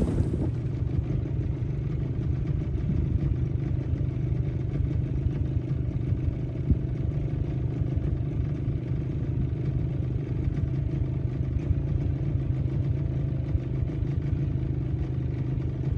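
A small boat's motor running steadily at low speed, with a low, even hum.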